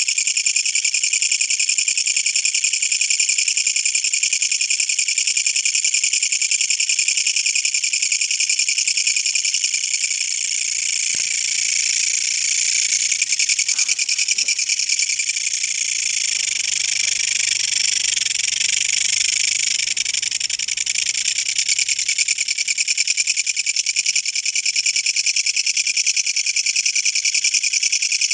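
A kutsuwamushi katydid (Mecopoda niponensis) stridulating at close range. It makes a loud, continuous, high-pitched rasping buzz of very fast pulses, easing slightly in the middle.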